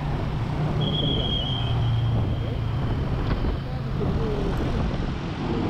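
Motorcycle engine running at low speed in slow, dense traffic, with the hum of surrounding cars and motorbikes. About a second in, a thin high tone sounds for nearly three seconds.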